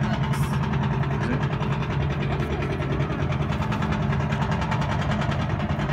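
Steady drone of an engine running at a constant speed, with no change in pitch or level.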